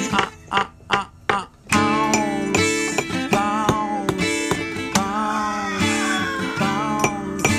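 Guitar-led band music: a few short stop-time hits with gaps in the first two seconds, then the full band comes back in and plays on.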